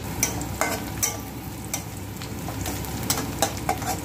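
Sliced onions and green chillies sizzling in hot oil in a metal kadhai, stirred with a metal spatula that scrapes and clicks against the pan a dozen or so times.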